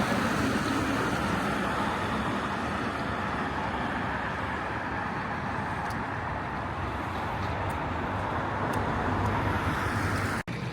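Steady city street noise with road traffic running by, an even rush with no single event standing out; the sound drops out for an instant near the end.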